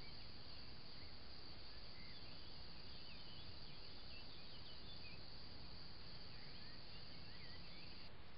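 Faint summer evening meadow ambience: a steady high-pitched insect chorus, with many short scattered bird chirps over it and a low rumble underneath.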